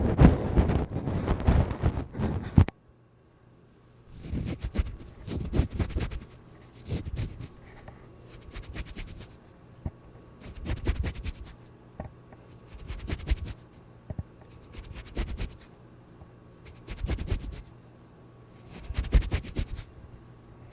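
Ear-cleaning ASMR sounds: close scratching and rubbing on the microphone, dense at first, then after a short pause in separate strokes about every two seconds.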